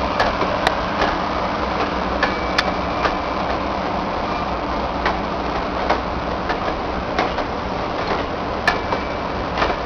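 GO Transit bilevel passenger coaches rolling along the track: a steady rumble with irregular sharp clicks from the wheels and two brief high-pitched squeals, one a couple of seconds in and one near the end.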